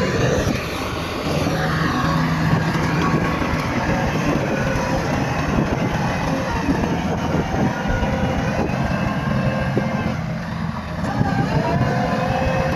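Bulldozer's diesel engine working under load, running steadily over a rough rumble. The engine dips briefly about ten seconds in, then its pitch climbs again.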